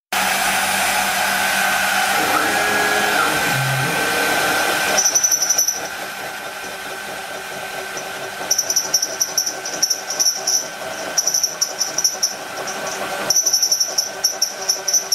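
CNC router spindle whining steadily while an end mill cuts a plate. The first five seconds are a louder, even cutting noise. After that the cut comes as rapid, irregular high-pitched chattering pulses.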